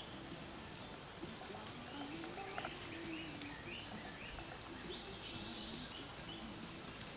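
Outdoor background noise with a bird calling in a run of short, high chirps through the middle of the stretch.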